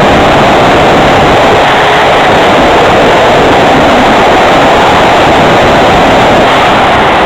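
Loud, steady rush of airflow buffeting a wing-mounted camera on a home-made RC plane in flight, with the plane's motor and propeller running underneath.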